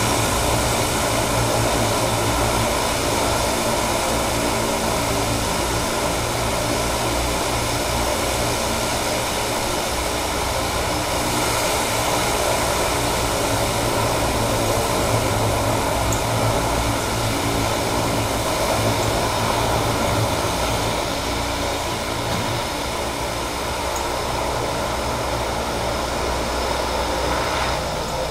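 Turboprop engines of de Havilland Canada DHC-6 Twin Otter floatplanes running steadily: a continuous propeller drone with many even tones, easing slightly in the last third.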